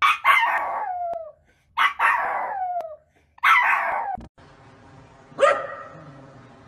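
A Pomeranian gives three loud howling calls, each starting sharply and sliding down in pitch as it fades. After a cut, a second dog barks once over a steady background hum, about five and a half seconds in.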